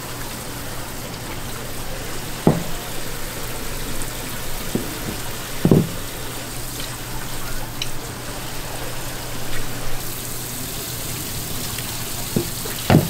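Steady running water, as from a tap, with a few sharp knocks; the loudest knocks come about six seconds in and at the very end.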